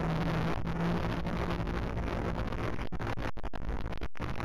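A steady low motor hum under heavy wind noise on the microphone. The hum fades after about two seconds, and the sound cuts out briefly a few times near the end.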